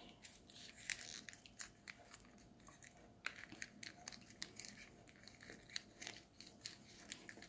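Origami paper crinkling and creasing faintly as fingers pinch and fold it, an irregular scatter of small crackles.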